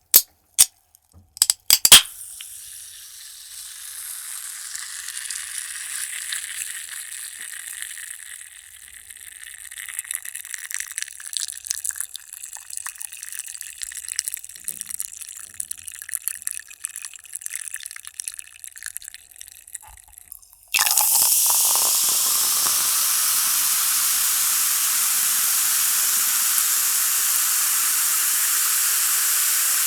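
A few sharp clicks, then carbonated cola fizzing with a crackling of bursting bubbles that swells and fades. About two-thirds of the way through, a sudden loud, steady hiss of escaping gas sets in and holds.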